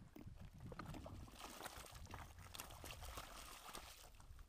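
Faint splashing and trickling of shallow water as a walleye is hand-landed at the water's edge, with a few light clicks scattered through it.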